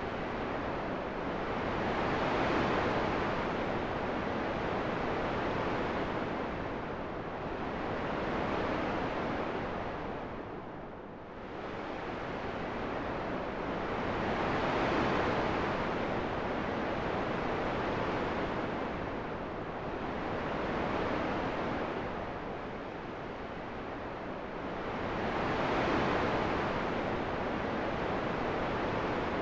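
Steady rushing wind that swells and eases in slow gusts, rising to a peak about every five to six seconds.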